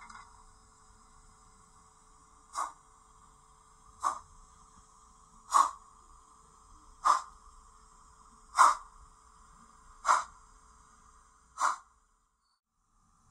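O gauge Peckett saddle tank model locomotive chuffing slowly while smoke puffs from its chimney. There are seven evenly spaced chuffs about a second and a half apart, over a faint steady hum.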